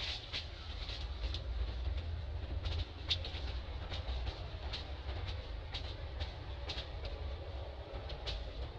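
Outdoor ambience: a steady low rumble with scattered short, sharp, high-pitched clicks, about one or two a second.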